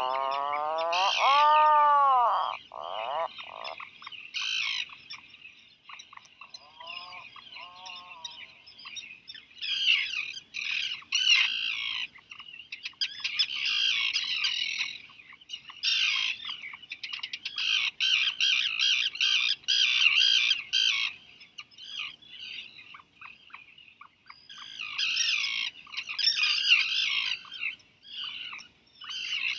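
Seabirds calling at a puffin burrow: bursts of high, rapid, chattering calls, densest in runs through the middle and near the end. In the first few seconds a lower, wavering call of two or three rising-and-falling notes is heard, and a fainter one follows later.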